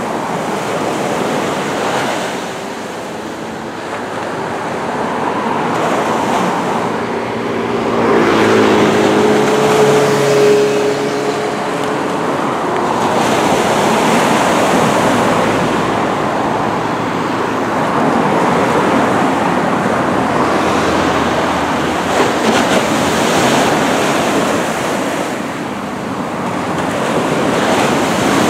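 Small surf washing onto the shore in a steady wash that swells and eases every few seconds. A low pitched engine hum passes through from about eight to twelve seconds in.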